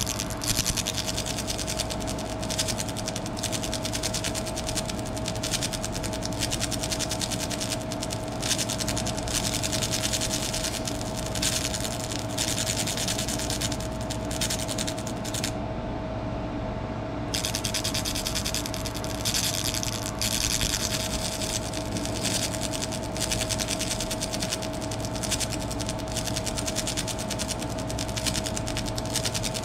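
Laser engraver running a stippling pattern: a dense, rasping buzz of rapid ticks over a steady hum with a held whine. About halfway through, the buzz stops for under two seconds while the hum carries on.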